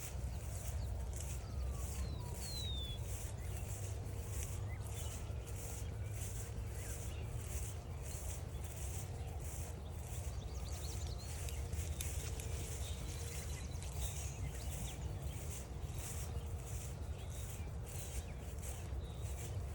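Footsteps crunching on a forest trail at a steady walking pace, about two to three steps a second, with a few faint bird calls.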